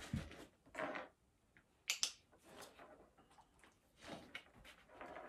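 Dog-training clicker clicked once about two seconds in, a sharp double click (press and release), marking the puppy touching the harness with his nose. Soft rustling of the harness and hands sounds around it.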